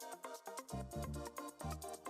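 Electronic background music with a steady beat and pulsing bass notes.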